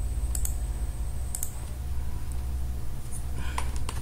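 Computer mouse clicking a few times, with a quick cluster of clicks near the end, over a steady low hum.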